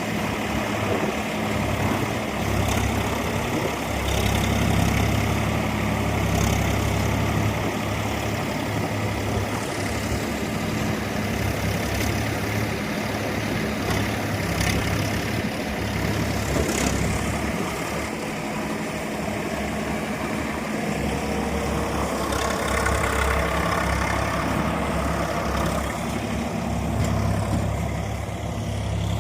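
Swaraj 855 FE tractor's diesel engine running steadily at idle, with a few light knocks.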